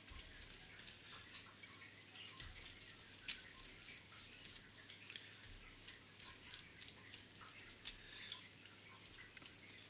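Faint, irregular soft ticks and dabs of a silicone pastry brush painting egg wash onto baked tortilla-wrap parcels.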